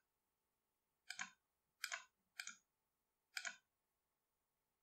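Computer mouse button clicking four times, each click a quick double tick of press and release, a half second to a second apart.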